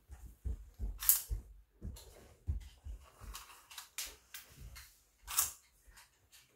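Clicks and light knocks from handling a small round retractable tape measure, with a sharp snap about five and a half seconds in as the tape reels back into its plastic case.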